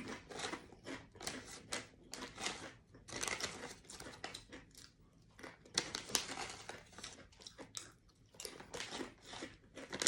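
Crinkly plastic snack packaging being handled, rustling in short irregular spells, with some crunchy chewing of snacks.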